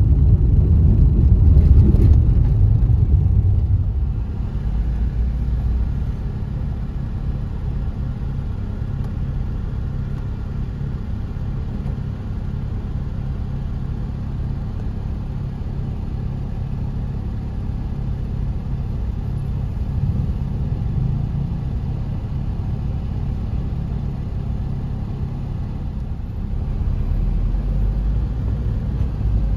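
Low, steady rumble of a car's engine and tyres heard from inside the cabin. It is louder for the first few seconds, then settles quieter as the car sits in slow traffic, and picks up again near the end.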